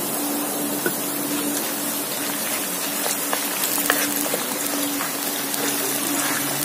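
Hot chilli oil sizzling and bubbling in a wok around whole chillies, garlic, spices and freshly added spring onions, with many small crackles; a wooden spatula stirs through it from about four seconds in. A low hum cuts in and out underneath.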